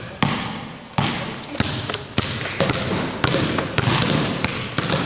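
Basketballs bouncing on a gym floor as children dribble: sharp, uneven thuds about one to two a second, each ringing out in the hall.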